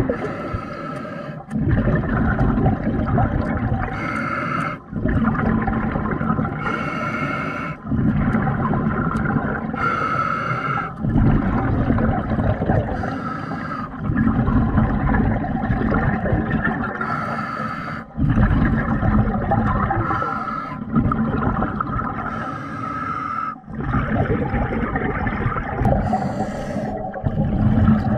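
A diver breathing underwater, with bursts of exhaled bubbles at a slow, regular pace of about one breath every three seconds.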